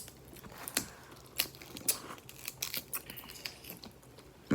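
Cooked Dungeness crab shells being cracked and pulled apart: a string of irregular sharp cracks and snaps.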